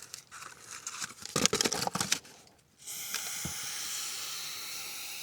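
Clinking and rattling for about two seconds, then an aerosol can of chain cleaner spraying in a steady hiss from about three seconds in.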